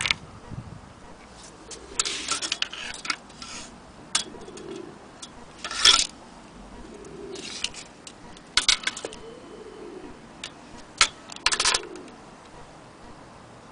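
Vintage Enfield mantel clock being handled: irregular clusters of light metallic clicks and rattles, the loudest about halfway through, with a few more near the end.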